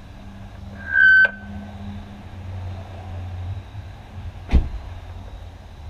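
A short, loud, high beep about a second in, over a low hum. About four and a half seconds in, the 2000s Subaru Forester's driver door shuts with a single thud.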